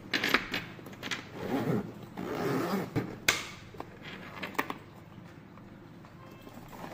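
A clock-shaped handbag being handled and unzipped: a zipper scraping open along its rim, with sharp clicks and knocks from its metal fittings and case.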